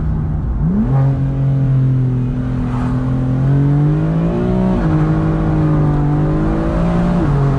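BMW M4's twin-turbo S55 straight-six pulling through the gears, heard from inside the cabin, with the intake and turbo noise made louder by front-mount intakes. The engine note climbs about a second in, climbs again, then drops back around the middle and again near the end.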